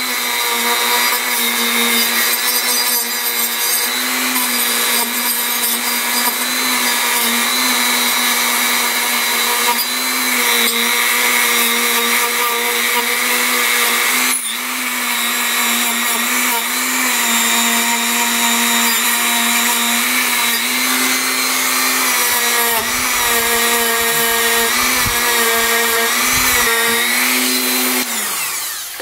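Handheld electric power tool running at a steady speed with a constant motor whine. It eases off briefly about halfway, then winds down to a stop just before the end.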